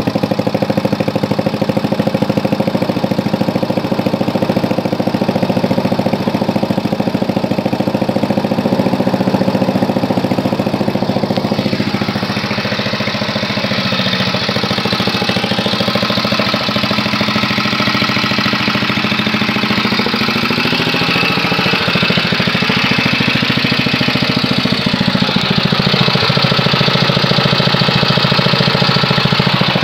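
Briggs & Stratton 5 hp single-cylinder engine on a minibike running steadily right after its first start-up from new old stock. Its speed drops about twelve seconds in and picks up again around twenty seconds in.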